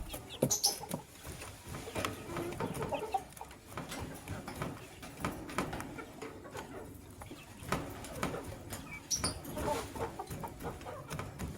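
Lovebirds chattering with short scattered chirps, mixed with many brief clicks and taps.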